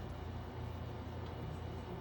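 Steady low hum with faint even background noise, with no distinct event standing out.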